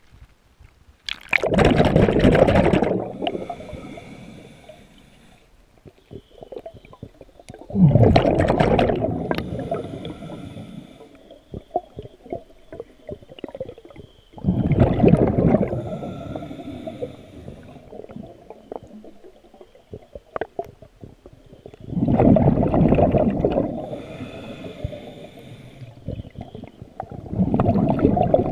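A scuba diver's exhaled breath bubbling out of the regulator, heard underwater: five gurgling bursts about every six or seven seconds, each trailing off into a fizz of rising bubbles.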